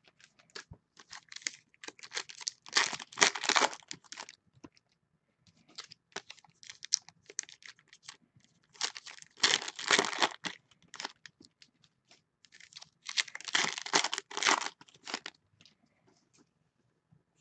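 A stack of trading cards thumbed through by hand, the cards sliding and flicking against one another in three bursts of rustling with scattered ticks between.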